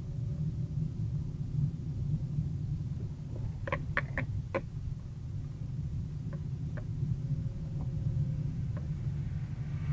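Car driving slowly, heard from inside the cabin: a steady low rumble of engine and road. About four seconds in comes a quick run of four or five sharp squeaks, with a few fainter single ones later.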